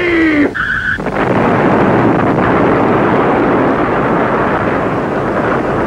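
Science-fiction TV sound effect of the Dominators' flying saucer exploding: a brief high electronic tone, then from about a second in a long, steady, loud rush of explosion noise.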